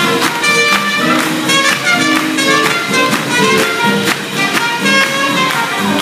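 Live swing jazz band playing an up-tempo tune, with a horn over guitar and a steady beat.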